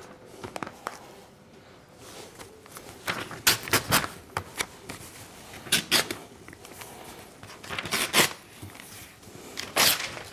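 Newspaper sheets rustling and crinkling as hands smooth and press them flat and taut on a board, in a handful of short rustles with quieter handling between.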